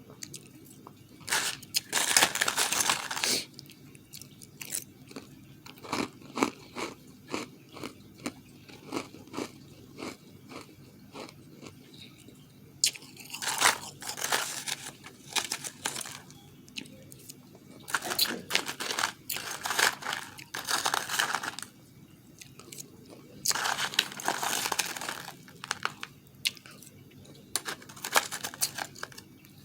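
Close-up crunching and chewing of refrozen powdery ice, in bites about a second long several times over, with quieter clicking chews in between.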